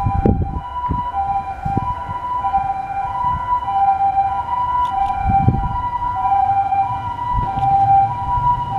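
Level-crossing warning bell ringing steadily in two alternating tones, one high and one lower, each held about half a second. Beneath it are the low rumble and several heavy knocks of an Enshu Railway 2000-series electric train pulling out of the station towards the crossing.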